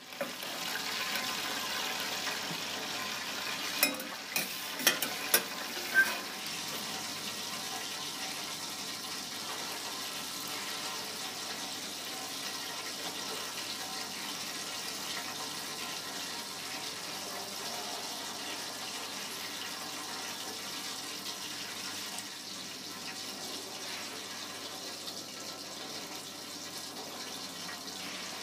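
Several sharp metal clinks about four to six seconds in, as a slotted spoon knocks against a steel saucepan and serving tray, over a steady hiss of kitchen background noise.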